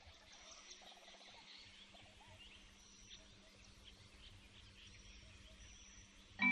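Faint outdoor ambience with birds chirping, short high calls scattered throughout. At the very end, music with mallet-percussion notes begins.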